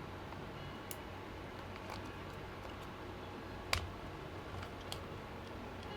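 A few faint, scattered clicks and taps of laptop parts being handled and fitted during reassembly, the loudest about three and a half seconds in, over a low steady hum.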